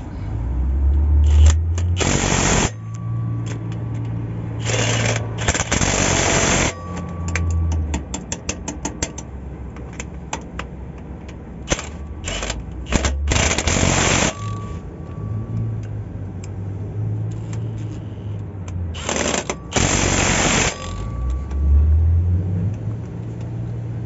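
Pneumatic impact wrench run in four short bursts of a second or two each, with a quick run of ratchet-like clicks between the second and third bursts and a low hum underneath.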